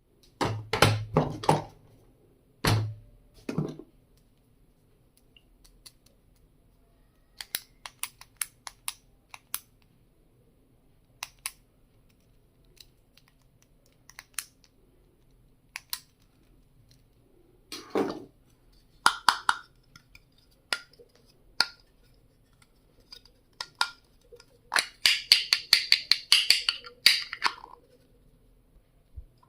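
Stationery items being handled and unpacked: scattered clicks and taps, a few louder knocks in the first few seconds, and a dense burst of rustling and crinkling about 25 seconds in.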